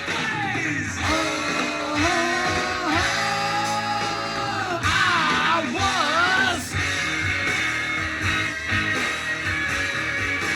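Rock song playing, with a lead singer and guitars over a drum beat.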